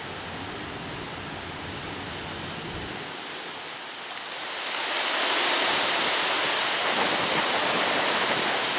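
Strong wind howling, a steady rushing noise that swells louder about four and a half seconds in.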